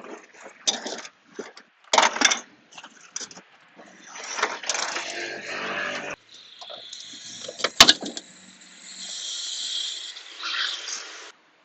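Hands and tools working on a car's front end: a run of clicks, knocks and rattles, then stretches of rushing, rustling noise, with one sharp knock about eight seconds in.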